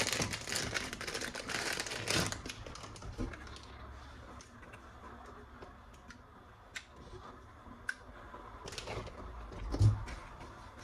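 Hard plastic toy gun parts being handled: a dense run of clicks and rattling in the first couple of seconds, then scattered sharp single clicks and a low thump near the end.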